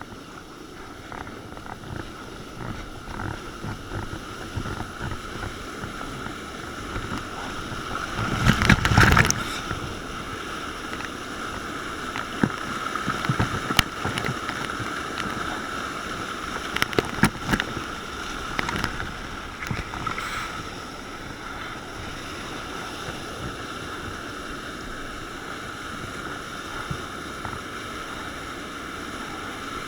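Rushing whitewater with kayak paddle splashes. There is a loud surge of splashing about eight to nine seconds in, and a few sharp knocks later.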